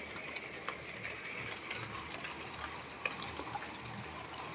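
Steady rain falling, an even hiss with many scattered sharp taps of drops striking hard surfaces.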